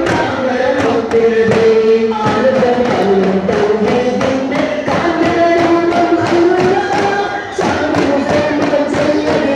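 Daff Muttu: a group of singers chanting a devotional song in unison, holding long notes, over daf frame drums struck in a steady rhythm.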